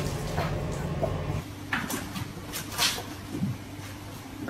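A few light, sharp knocks and taps in quick succession, after a faint steady hum that cuts off about a second and a half in.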